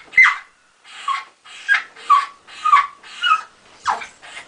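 Dog whining and yipping in a run of about seven short cries, each falling in pitch, roughly two a second.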